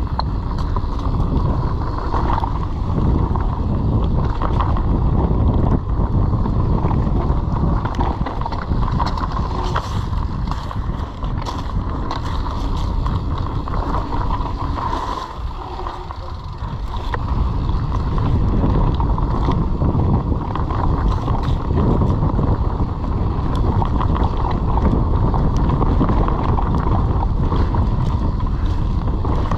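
Mountain bike descending a dirt singletrack at speed: steady tyre rumble over the trail, sharp rattles from the bike, and wind buffeting the camera microphone. It eases briefly about halfway through, then picks up again.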